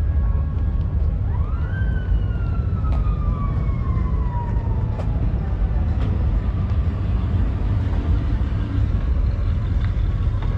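Siren wailing once in the distance, a quick rise in pitch followed by a slow fall lasting about five seconds, over a steady low rumble.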